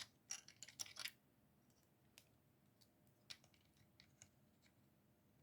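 A quick run of light clicks and taps from handling the small plastic radio kit and its case in about the first second, then only a few faint scattered ticks.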